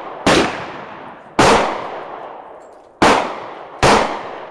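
Glock 27 .40 S&W subcompact pistol fired four times at an uneven pace, with another shot starting right at the end. Each sharp report is followed by a long echoing decay. The slide cycles without a hitch.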